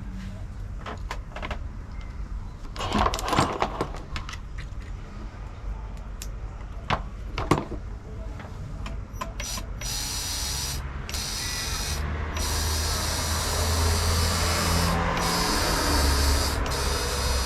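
Small clicks and knocks of handling, then from about ten seconds in a small electric RC car motor spins fast with a high whine, cutting out and starting again several times. The motor had been seized and was forced free by hand, and now runs.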